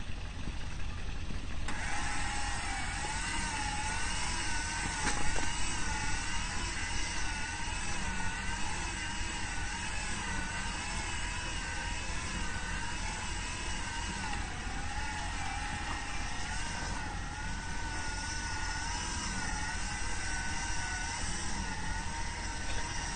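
A four-wheel-drive rescue vehicle's engine running steadily in the snow, with a high whine over it that wavers up and down about once a second. A single knock sounds about five seconds in.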